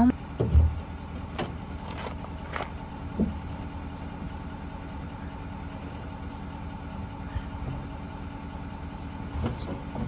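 An engine idling steadily with an even low hum. A thump comes about half a second in, and a few light clicks follow in the next couple of seconds.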